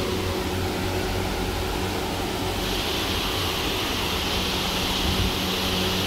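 Steady rush of a waterfall: creek water pouring over rock ledges.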